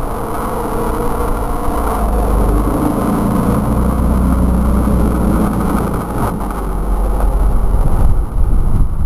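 Ski-Doo Formula snowmobile's two-stroke engine revving hard as it runs up to and takes a jump, its pitch rising a couple of seconds in and its sound getting louder near the end as the sled comes close.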